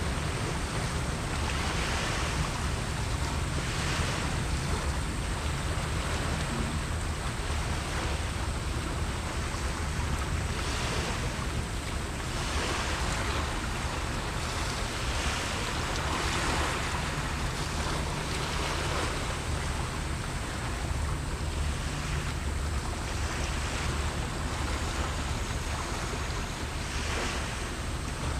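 Small sea waves washing onto the shore in irregular swells every few seconds, over a steady low rumble.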